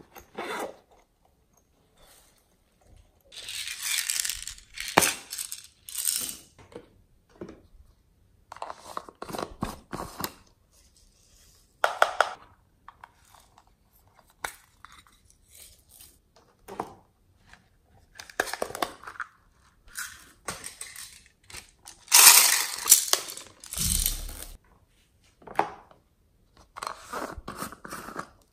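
Small plastic cases and jars being handled and opened: a zipper pulled, lids clicking, and sequins and small plastic beads rattling and spilling out, in a series of short bursts with gaps between. The loudest clatter comes about two-thirds of the way through.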